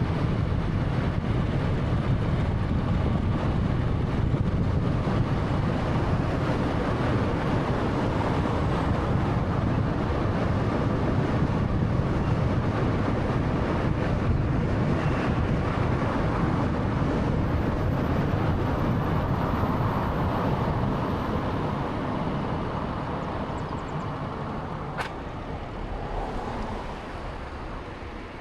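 Steady road and engine noise from a moving 2013 Honda Fit with a 1300cc engine, growing quieter over the last few seconds. A single sharp click comes near the end.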